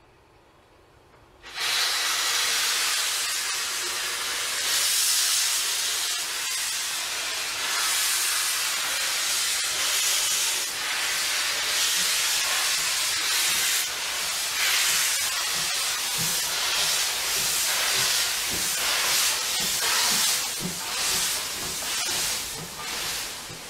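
Steam locomotive C11 325 venting steam from its cylinder drain cocks: a loud hiss that starts suddenly about a second and a half in. From about the middle on, the hiss comes in uneven surges with short low thumps.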